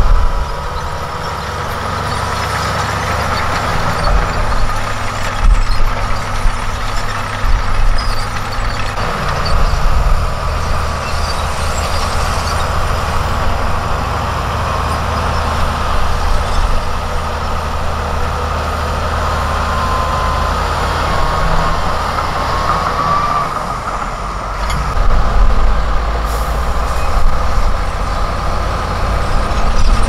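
Heavy diesel engines of a dump truck and a LiuGong B160C crawler bulldozer running at work. The rumble changes character a couple of times as the machines change.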